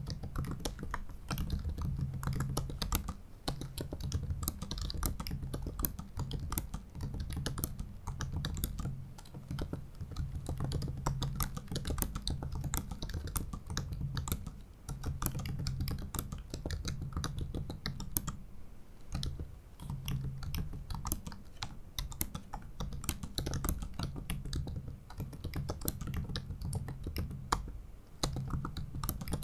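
Steady typing on a 2017 MacBook Pro 15-inch's built-in ultra-thin butterfly-switch keyboard: rapid, shallow key clicks in quick runs, with short pauses now and then.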